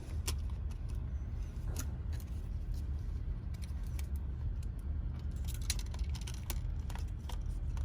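Scattered small clicks and metallic taps as a MacBook Pro logic board and its parts are handled and fitted into the laptop's case, over a steady low hum.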